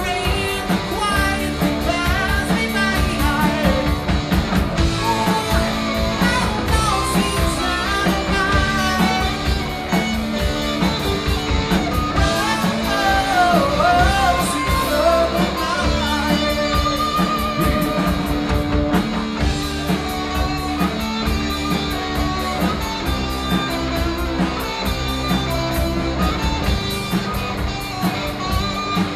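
Live rock band playing: a man singing over electric guitars and a Pearl drum kit. The singing drops out near the end while the guitars carry on.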